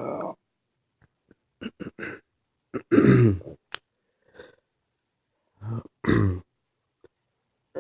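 A man burping in a series of short separate belches mixed with throat sounds, the loudest about three and again about six seconds in. These are burps from someone who for years could not burp at all because of dysfunction of the belch reflex.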